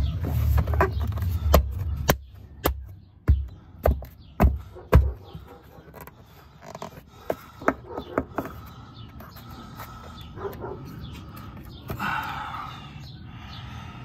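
Sharp plastic clicks and knocks, about ten in the first five seconds, as the Mini Cooper R53's plastic shifter box cover is pushed and snapped back onto the shifter housing. Softer handling clicks and rustling follow.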